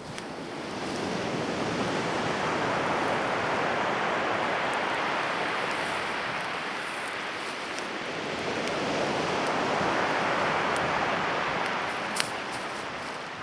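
Wind gusting in a rushing noise that swells twice and eases, over a campfire giving a few faint crackles and one sharper snap near the end.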